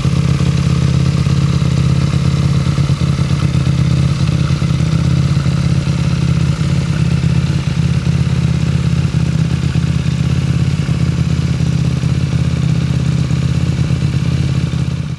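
KTM RC 8C's 889 cc parallel-twin engine idling steadily through an Akrapovič full titanium exhaust.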